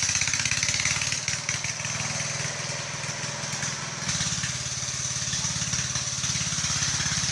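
A small engine running steadily with an even low pulsing; it eases off about a second in and picks back up about four seconds in.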